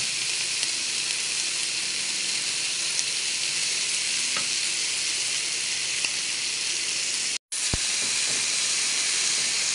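Pork belly slices sizzling steadily on a hot grill pan as a ketchup-and-soy-sauce baste is brushed on, with a few faint ticks. The sound drops out completely for a moment a little past seven seconds in, then the sizzle resumes.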